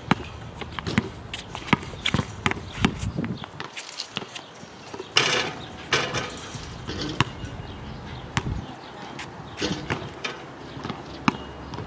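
Basketball bouncing on an outdoor hard court in irregular sharp bounces. There is a louder, longer rattling hit about five seconds in, as the ball strikes the hoop.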